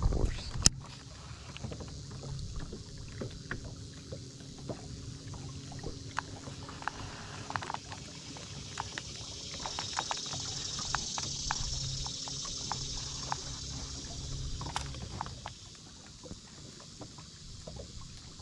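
Fishing from a boat: a baitcasting reel being cranked to retrieve a lure, with small scattered clicks and ticks, over a steady low hum and water lapping at the hull. A sharp click about half a second in; the hum stops about fifteen seconds in.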